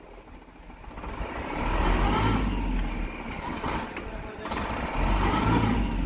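Tata Winger van's engine revving up twice, each rev rising and falling over about two seconds.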